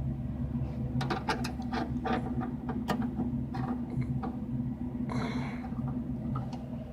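A series of small clicks and light knocks from handling during a CRT monitor's convergence adjustment, with a brief scrape about five seconds in. Under it runs a steady low electrical hum.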